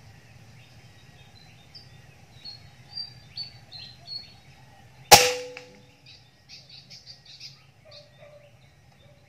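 Birds chirping in short high notes, then a single sharp air rifle shot about five seconds in, with a brief ringing after it. More quick chirps follow the shot.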